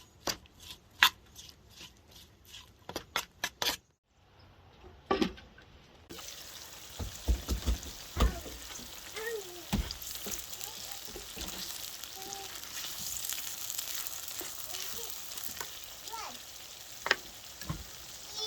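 A quick run of sharp knocks, then after a short break food sizzling steadily in a hot pan, with occasional knocks of a utensil stirring it.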